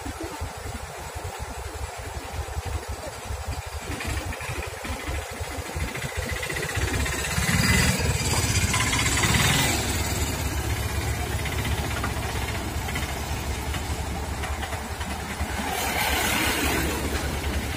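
JCB 30 Plus mini excavator's diesel engine running as the operator works the boom and bucket. The engine note grows louder and steadier about seven seconds in, as the engine is brought under load.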